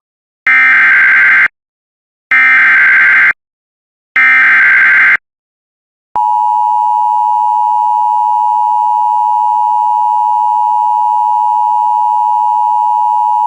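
Emergency Alert System tones: three one-second bursts of the SAME header's data tones, then, about six seconds in, the steady two-tone EAS attention signal. The bursts encode the alert, and the attention tone signals that an emergency message, here a severe thunderstorm warning, is about to be read.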